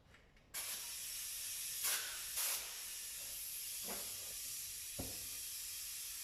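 Compressed air hissing steadily from a tyre machine's inflation line, starting about half a second in, with two short louder spurts and a couple of faint knocks. The air is escaping past a tyre bead that has not sealed on the rim.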